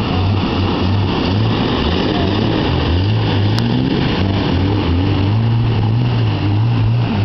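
Jeep Wrangler engine revving up and down under load as it drives through a deep mud pit, with a dense hiss of spinning tyres and flung mud.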